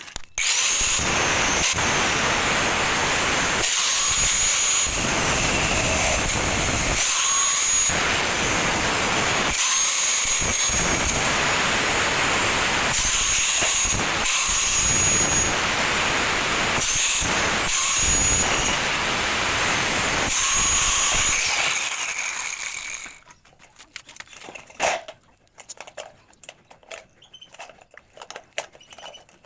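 A power tool working on light steel hollow tube, running loud in long stretches broken by brief dips, with a faint high whine over the noise. It stops about 23 seconds in, followed by quieter scattered handling sounds.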